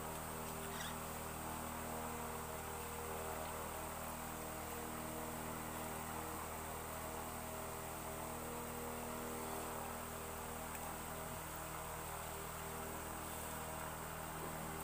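Steady low hum with several even overtones, unchanging in pitch and level.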